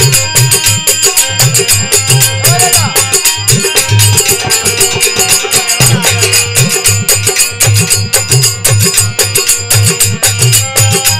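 Instrumental interlude of a Rajasthani devotional bhajan: harmonium holding the melody over a fast, steady dholak beat, with a metallic jingle keeping time.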